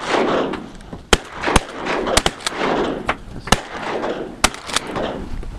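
A volley of shotgun blasts from several duck hunters firing together, about seven or eight shots at uneven intervals over a few seconds, each trailing into a rolling echo.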